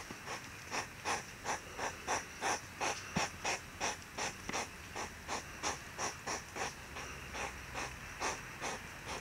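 European hedgehogs courting: a steady run of breathy puffs, about three a second, the huffing that a hedgehog makes during the circling courtship.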